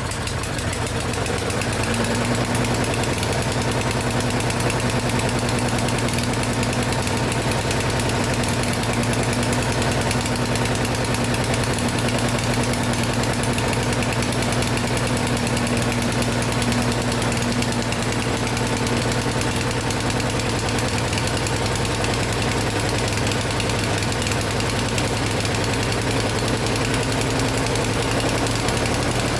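Kohler 6.5 149cc single-cylinder mower engine running steadily after its carburetor has been cleaned, warming up on choke.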